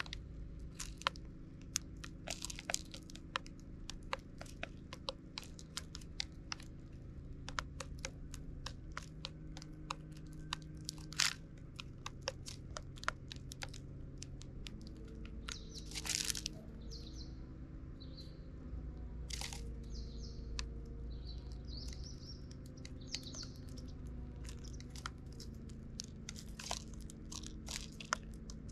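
Eurasian tree sparrows pecking seed from plastic trays: irregular sharp taps of beaks on the plastic and seeds cracking. A few short chirps come past the middle.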